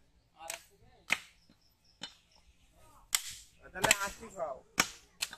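Heavy butcher's cleaver chopping beef on a wooden log chopping block: about six sharp chops, roughly one a second.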